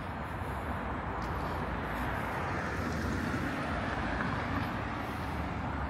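Steady outdoor background noise, a little louder from about two seconds in, with a passing vehicle or traffic the likeliest source.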